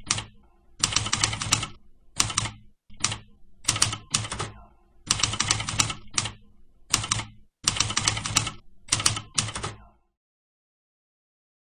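Mechanical typewriter keys being struck in quick bursts of several keystrokes each, with short pauses between, stopping about ten seconds in.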